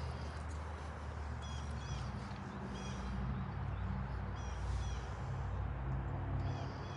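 A bird calling outdoors: short pitched calls repeated several times, some in quick pairs, over a steady low rumble.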